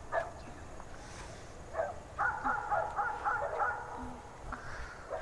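A dog barking faintly in short yaps, with a quick run of about six near the middle.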